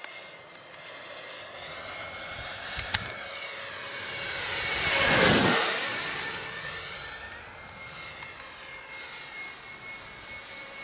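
Electric ducted fans of a Freewing 80mm A-10 radio-control jet whining through a low pass. The whine swells to its loudest about five seconds in and drops in pitch as the model goes by. It steps back up in pitch a couple of seconds later and fades.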